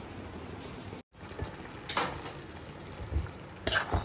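Fenugreek leaves cooking in a steel kadai: a steady low sizzle with a few clinks of the spatula against the pan, the loudest near the end. The sound drops out abruptly for a moment about a second in.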